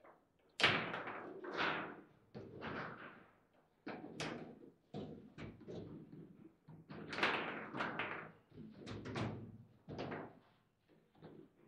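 Foosball table in play: irregular sharp knocks and clacks as the ball is struck by the players' figures and bangs off the table's walls, with the rods being worked.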